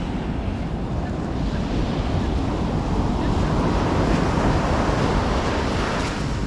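Sea surf washing onto the shore, with wind buffeting the microphone; a steady rush that swells slightly in the middle.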